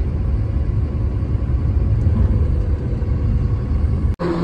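Steady low rumble of a truck driving on the road, engine and tyre noise heard from inside the cab. It cuts off abruptly near the end.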